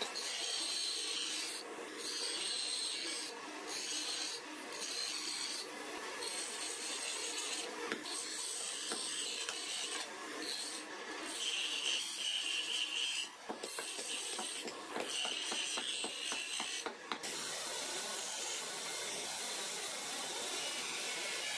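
Steel knife blade ground against a spinning bench grinder wheel: a rasping hiss that breaks off and starts again as the blade is lifted and pressed back on. About 17 seconds in it gives way to the even, steady noise of a running wheel.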